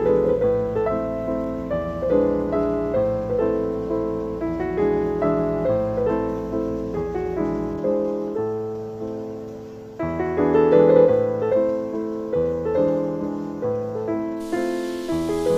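Background piano music: a gentle melody of single fading notes over a low held bass. The bass drops out about halfway through, and a new phrase begins a couple of seconds later.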